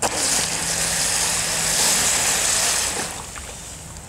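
Twin electric jet pump drives on a home-built jet board running in the water, their nozzles throwing out a rush of churned water and spray. The rush starts suddenly and dies down about three seconds in.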